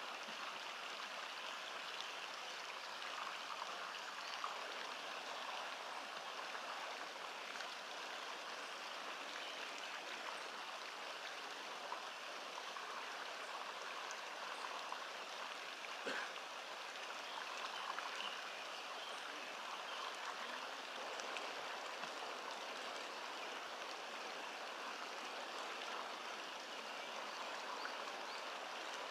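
Steady rush of running water from a small stream, an even hiss with no pauses.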